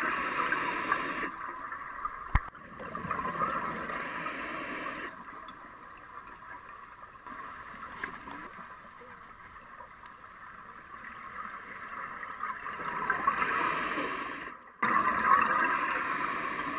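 Scuba regulator exhaust bubbles rushing past an underwater camera in bursts of a few seconds, with a long quieter stretch in the middle and a sharp click about two seconds in.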